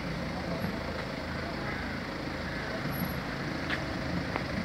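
Police van's engine idling with a steady low rumble, mixed with outdoor street noise.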